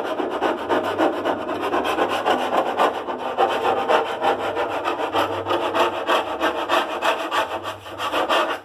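Fast, even rasping strokes, like sawing or filing, that continue steadily and cut off abruptly at the end.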